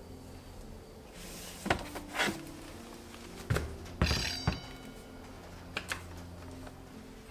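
White plastic rice storage bin being handled: rustling and clicks as it is drawn out of a cabinet, two thuds as it is set down on a wooden counter, then small clicks as its lid is lifted.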